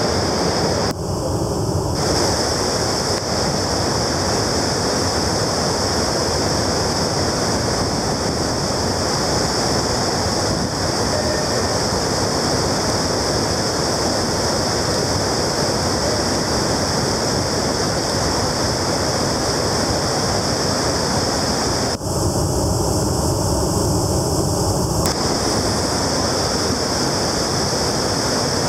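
Water pouring over the stepped sills of Pulteney Weir and churning into whitewater below, a loud, steady rush of falling water.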